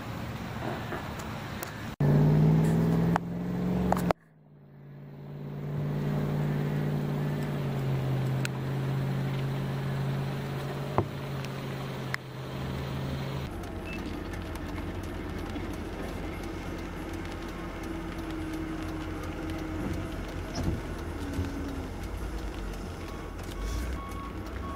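Motor vehicle engine running, over several edited clips. A steady low hum gives way about 13 seconds in to a rougher low rumble with road noise.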